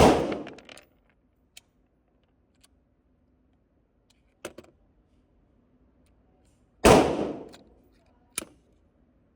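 Gunshots in an indoor shooting range: a loud report right at the start and another about seven seconds in, each ringing off the walls for most of a second, with short sharp clicks between them.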